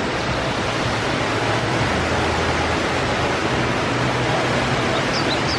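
Steady rushing of falling water, an even wash of noise at a constant level. A few short high bird chirps come in near the end.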